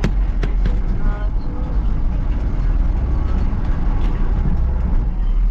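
Motor vehicle driving, a steady low rumble of engine and road noise, with a few short knocks or rattles.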